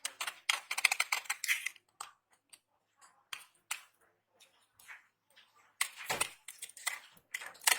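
Dry soap crackling and crunching as it is broken up: two bursts of rapid crisp clicks, one near the start and one near the end, with scattered single cracks between.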